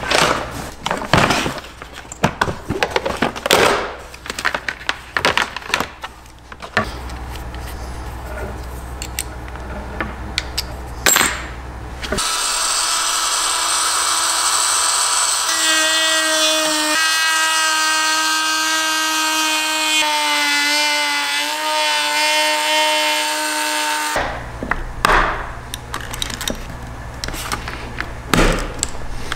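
Clicks and knocks of a tool being handled and set up, then a handheld rotary tool runs for about twelve seconds with a steady high whine whose pitch shifts as its bit cuts into the food dehydrator's plastic base. It stops suddenly and is followed by more clicks and knocks of hand work on the housing.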